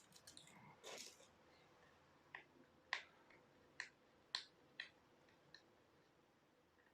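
Faint scratching and clicking of a fingernail picking at the edge of a box to open it: a short scrape about a second in, then about six sharp clicks spread over the next few seconds.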